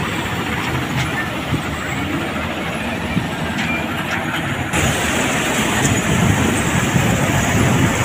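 Diesel engines of a tractor and a Preet 987 combine harvester running steadily close by. The sound gets louder a little over halfway through as the combine comes alongside the trailer.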